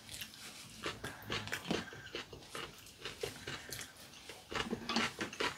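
Close-up mouth sounds of eating spaghetti: wet chewing and slurping of aglio e olio pasta, a string of irregular smacks and clicks.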